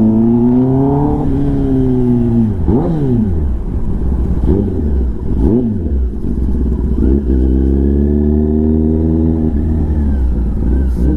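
Kawasaki Ninja ZX-10R's inline-four engine through an SC-Project exhaust, accelerating for about a second, then easing off. Three quick sharp rises and falls in revs follow, then a longer steady pull that drops off near the end.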